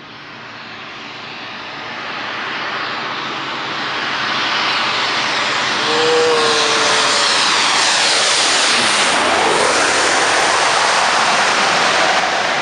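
Landing airplane passing low overhead on final approach: its engine noise builds over the first several seconds to a really loud, steady level, with the pitch sweeping as it passes over about nine seconds in.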